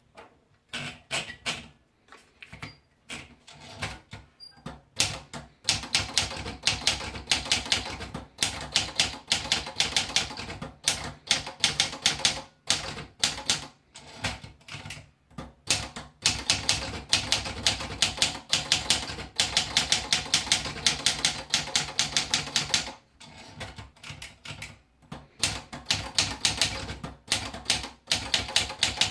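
Olivetti Lettera 35 portable manual typewriter being typed on: quick runs of keystrokes, several a second, broken by short pauses.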